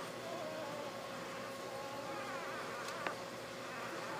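Newborn basset hound puppies squeaking and whimpering in thin, wavering cries while they nurse, over a steady high hum. A single sharp click about three seconds in.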